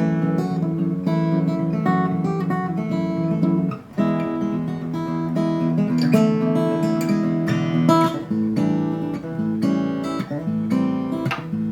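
Background music: strummed acoustic guitar, with a short break about four seconds in.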